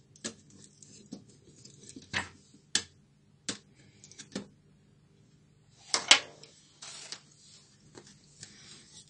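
Sharp clicks and taps of plastic and metal laptop parts being handled: the motherboard, connectors and screwdriver knocking against the netbook's open plastic chassis. There is a brief scrape and a louder double knock about six seconds in.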